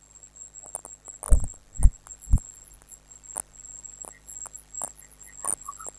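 Three dull thumps about a second in, then scattered light clicks of a computer mouse and desk, over a faint steady high-pitched electrical whine.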